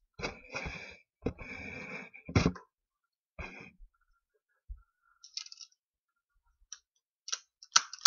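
A removed VW Mk5 seatbelt retractor being handled and turned over in the hands: rubbing and scraping of its plastic housing for about two seconds, a sharp click about two and a half seconds in, then a scatter of small clicks and taps.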